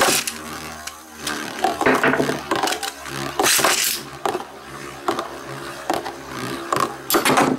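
Two metal-wheeled Beyblade spinning tops, Ray Gil 125RSF and Cyclone Herculeo 105F, launched with a sharp rip at the start, then whirring and scraping across a clear plastic stadium. They clash with loud clacks several times, the biggest about halfway through and near the end, as one is driven toward a stadium out.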